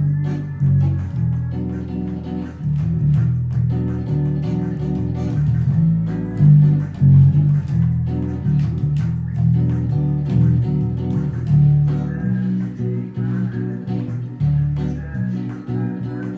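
Guitar music: plucked and strummed notes in a steady rhythm over low bass notes.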